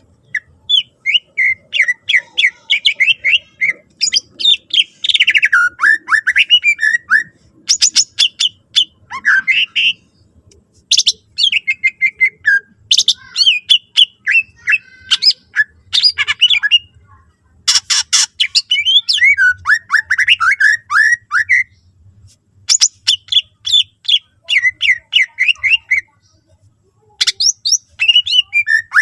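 Green leafbird (cucak ijo) singing a fast, varied song of chirps, trills and sweeping whistles in bursts, with a few short breaks. The song is filled out with phrases borrowed from other birds' songs.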